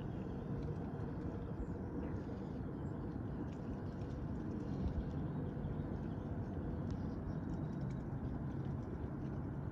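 Mute swans pecking seed off a rock, faint clicks of their bills on the stone over a steady low background rumble.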